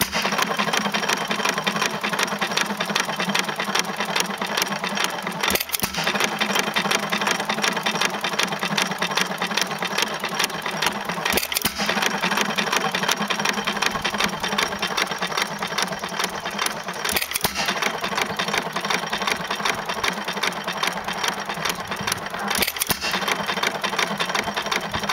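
2 HP Sparta Economy hit-and-miss gas engine running, with a quick steady clatter of clicks from its valve gear and ignitor. A sharper stroke breaks through four times, about six seconds apart.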